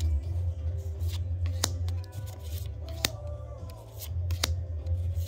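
Pokémon trading cards and packs being handled, with three sharp snaps about a second and a half apart, over background music with a steady low bass.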